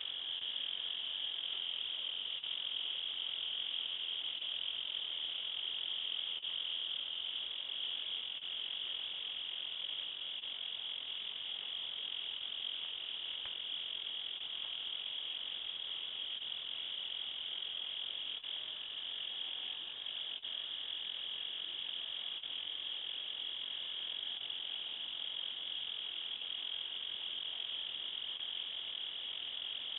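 Insects singing in a continuous chorus: a steady, high trill that never pauses.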